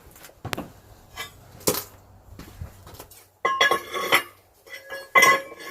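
Pieces of steel clanking and ringing against an anvil as a length of steel channel and a sheet-metal piece are laid in place on it, in a few separate knocks with a busier cluster near the middle and the loudest clank near the end.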